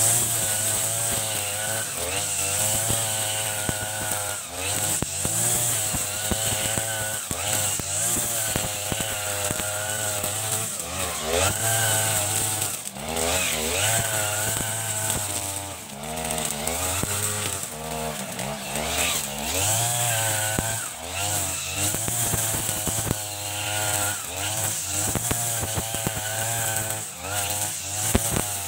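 40cc-class two-stroke backpack brush cutter running at high revs while cutting tall grass. The engine pitch keeps dipping and rising as it takes the load of the grass and frees up again, over the hiss of the spinning cutting head.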